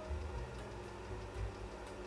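5¼-inch 1.2 MB floppy drive reading an MS-DOS boot disk as the 386 starts to boot: a low, uneven hum with a faint click near the end.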